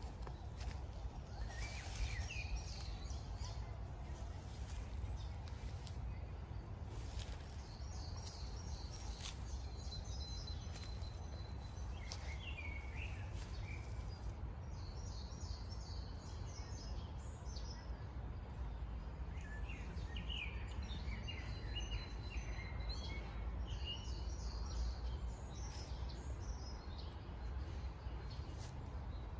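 Outdoor ambience: a steady low rumble with small birds chirping in short bursts every few seconds.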